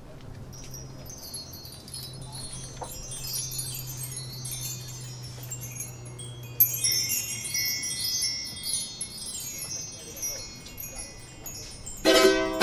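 Hand-struck bar chimes, a row of aluminium tubes hung from a bamboo bar, brushed by hand into a high shimmering ring. A second, stronger sweep comes about halfway through and slowly dies away. Near the end an acoustic guitar comes in with plucked chords.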